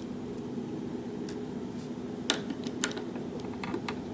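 Small metal lock pins and tools clicking lightly as the disassembled pin-tumbler lock's pins are handled and set out one by one, a few scattered ticks over a steady low hum.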